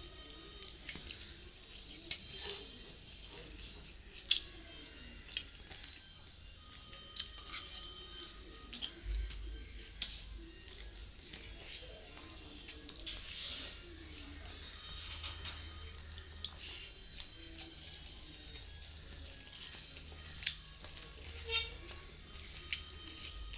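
Fingers mixing rice and curry on a stainless steel plate: irregular wet squishes and sharp clicks and scrapes of the fingers against the metal, a few of them loud.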